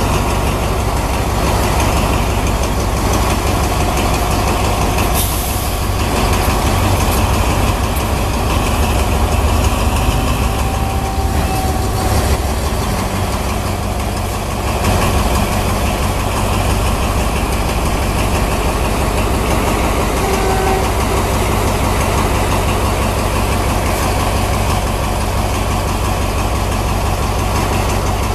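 Alsthom diesel locomotive's engine running steadily at idle.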